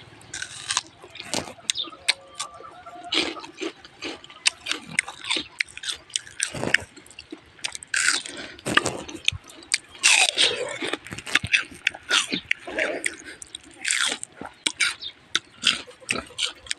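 A person biting into and chewing raw kamias (bilimbi) fruit: a rapid, irregular run of crunches and mouth clicks.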